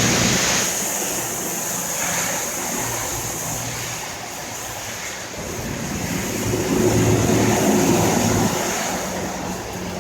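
Heavy rain falling steadily, a dense rushing hiss. A low rumble swells up for a couple of seconds about two-thirds of the way through.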